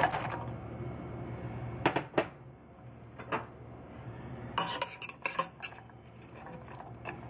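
Sliced carrots tipped from a glass bowl into a stainless steel pot, landing on sweated onions and celery. A metal spoon then clinks and scrapes against the bowl and pot, with sharp knocks about two and three and a half seconds in and a quick run of clatter about five seconds in.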